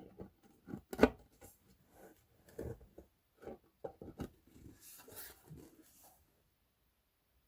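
Handling noise from a loudspeaker being closed back up: scattered clicks and knocks with some rubbing, the sharpest knock about a second in. It goes silent about six seconds in.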